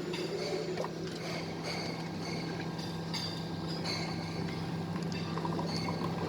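A steady low mechanical hum with faint scattered background sounds above it.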